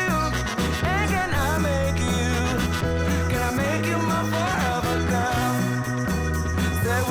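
Background music: a pop song with a voice singing over a steady bass line.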